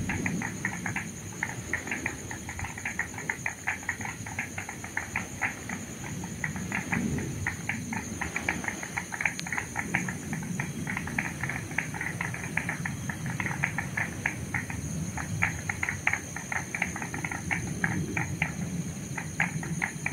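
Outdoor morning ambience: a dense chorus of short, high chirps from small animals, several a second and uneven, over a steady high-pitched buzz and a low, even rush.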